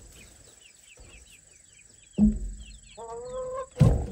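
Chicks peeping continuously, a run of short falling chirps. About three seconds in a chicken gives a lower drawn-out call, and there is a sudden thump just before that call and another near the end.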